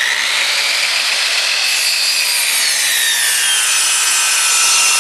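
Ryobi 10-inch miter saw running at full speed with a high whine, its blade pulled down to make a square crosscut through a wooden board from about a second and a half in. The whine sinks slowly in pitch as the blade works through the wood.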